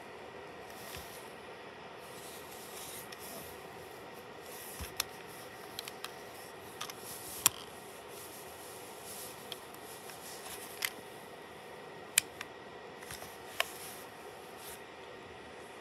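Plastic toy telephone handled in the hand: scattered sharp clicks and taps of hard plastic, a few of them loud, over a steady low hiss.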